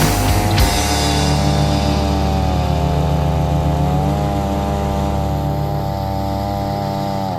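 Holzfforma G660 two-stroke chainsaw running steadily on an Alaskan sawmill cut, its pitch wavering a little, with background music.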